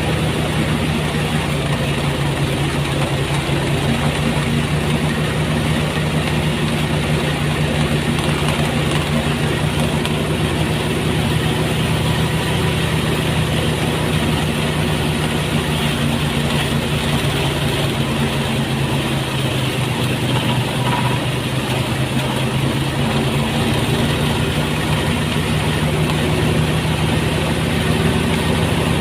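Motorized rice thresher running steadily, its engine droning at a constant speed with the rattle and whir of the threshing drum.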